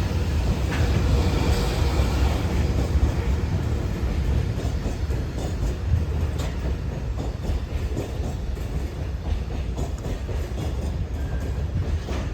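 Freight train passing at speed: a steady heavy rumble of wheels on rail, with the wagons clattering over rail joints.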